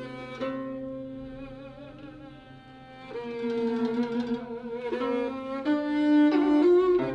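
Yehu (coconut-shell fiddle) playing a slow, mournful melody with vibrato, with guzheng plucked notes alongside in a Cantonese tune.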